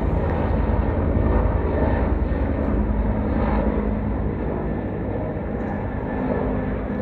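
Agusta-Bell AB 212 helicopter, with twin turbines and a two-bladed main rotor, flying past overhead: a steady low rotor and turbine drone that fades gradually in the second half.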